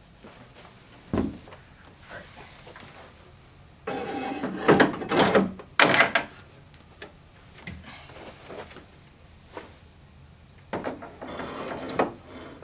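Metal knocks, clunks and scraping as a flat-screen TV's mounting arms are hooked onto a wall bracket. There is a single thump about a second in, a loud cluster of clatter from about four to six seconds in, and a few lighter knocks near the end.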